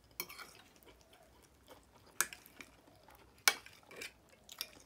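Close-miked eating sounds: chewing with a few sharp clicks of a metal fork and knife against the plate while cutting pancakes, the loudest clicks about two and three and a half seconds in.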